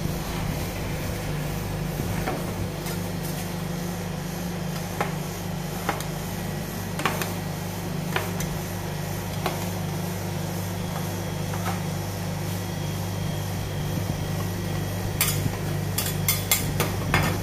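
Metal spatulas clicking and tapping on the steel freezing plate of a roll-ice-cream machine: single sharp clicks every second or two, then a quick cluster of louder clicks near the end. Under them a steady low machine hum with a regular pulse.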